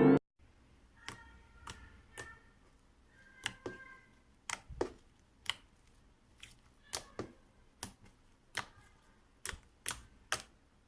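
Slime being handled: about fifteen sharp clicks and pops at irregular intervals, some with faint brief squeaky tones in the first few seconds.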